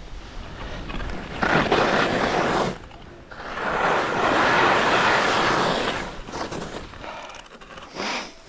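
Skis scraping across crusty, chopped-up snow in turns: two long scrapes, one about a second and a half in and a longer, louder one in the middle, with shorter ones after. The snow is neither ice nor powder, about the worst conditions for skiing.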